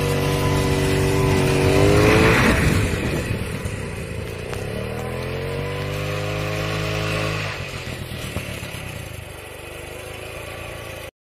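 Scooter engine driving a homemade tiller, running and revving up about two seconds in. It revs again, rising in pitch, from about four and a half seconds, drops back near eight seconds, and the sound cuts off suddenly near the end.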